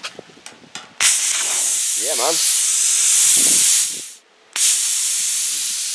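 Cut40 plasma cutter torch hissing as its trigger is pressed, firing in two long bursts with a short break between them: the torch working again after its faulty trigger cable was replaced.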